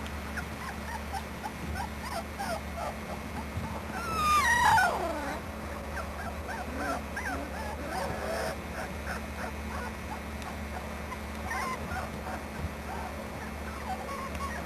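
Young puppies, about three weeks old, whimpering and squeaking in short cries, with one louder whine about four seconds in that falls in pitch. A steady low hum runs underneath.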